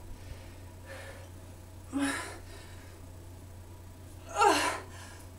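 A woman breathing hard from exertion during kettlebell lifts: a short voiced exhale about two seconds in and a louder one with a falling pitch about four and a half seconds in, over a steady low hum.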